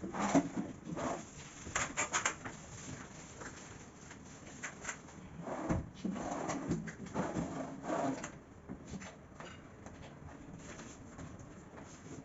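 Aluminium kitchen cabinet doors and drawers being opened and closed, with scattered clicks and knocks in clusters.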